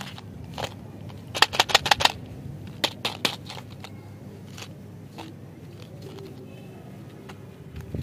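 Fingers handling a small cardboard candy box: a quick run of crisp clicks and taps about a second and a half in, a couple more around three seconds, then fainter rubs.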